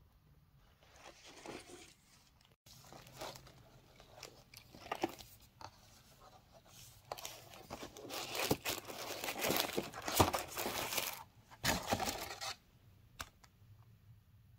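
Paper and card packaging rustling and crinkling as it is handled in a gift box: short bursts, then a louder, busier stretch from about eight to twelve seconds in.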